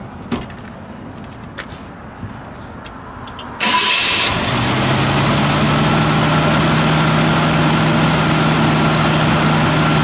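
The 1967 Ford Thunderbird's 390 cubic-inch V8 with dual exhaust is started. After a few light clicks, the starter cranks briefly about three and a half seconds in, the engine catches, and it settles into a steady idle.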